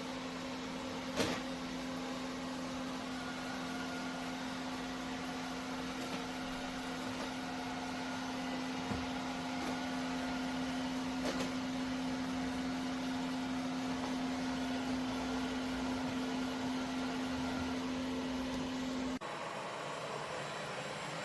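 Airzeen R7 robot vacuum running, a steady motor hum and whirr with a couple of sharp clicks. The hum cuts off abruptly near the end, giving way to a different, lower noise.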